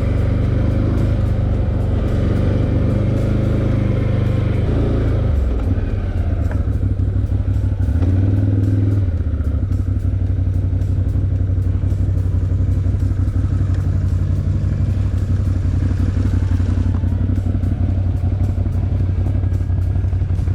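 Can-Am ATV engine running while riding a dirt trail. Its pitch rises and falls with the throttle for the first several seconds, then holds steadier.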